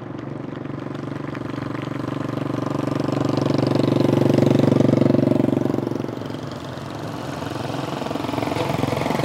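Motorcycle engines running at low, steady speed as the bikes ride past. The sound grows to its loudest about halfway through and fades, then builds again near the end as more motorcycles approach.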